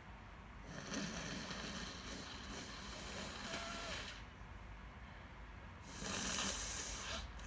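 A person with a cold blowing their nose into a tissue, two long blows about five seconds apart.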